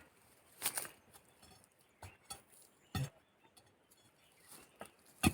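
Irregular knocks and scrapes of a hand digging tool working into earth, digging out a wild yam root; a few separate strikes spaced unevenly, the last near the end the loudest.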